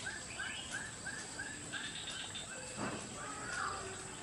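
A bird calling in a quick, steady series of short arched chirps, about three a second, with other bird calls over it and a brief rustle about three seconds in.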